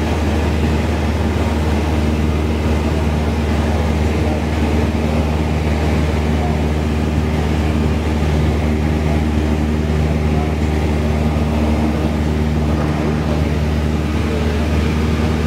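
Single-engine light aircraft's engine and propeller droning steadily, heard from inside the cabin at cruise.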